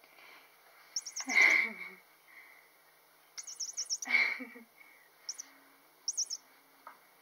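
Blue plush squeaky bird cat toy chirping. It goes off twice about three seconds apart, each time a quick run of high chirps and then a louder bird call, with two shorter bursts of chirps near the end.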